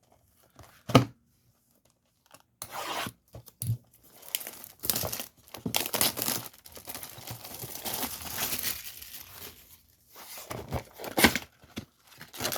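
Plastic wrapping on a trading-card mega box being torn open and crumpled, in long stretches of rustling and crinkling, after a single sharp knock about a second in.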